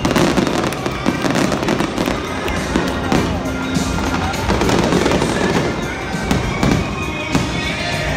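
Aerial fireworks shells bursting and crackling in a rapid, continuous barrage, with music playing underneath.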